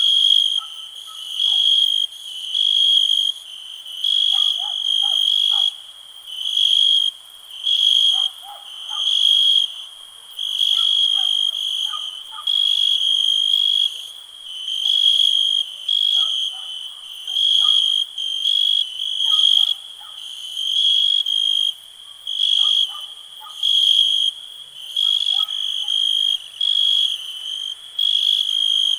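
Crickets chirping: high trills pulsing in a steady rhythm, about one burst a second, with fainter lower-pitched calls scattered underneath.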